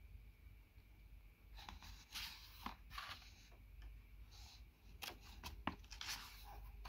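Pages of a paperback book being flipped by hand: soft, faint paper rustles and flicks in two bunches, the first about a second and a half in and the second about five seconds in.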